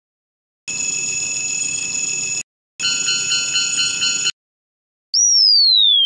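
Cartoon sound effects: a steady ringing chime, then a railroad crossing bell ringing in quick pulses for about a second and a half, then a long whistle falling steadily in pitch near the end, the loudest sound here.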